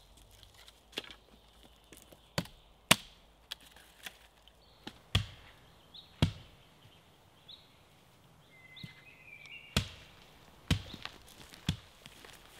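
Axe chopping wood: a series of sharp, irregularly spaced blows, with a pause of a few seconds in the middle.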